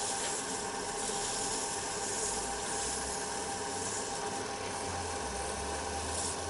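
Wood lathe running steadily at low speed, a constant motor whine with a high hiss over it.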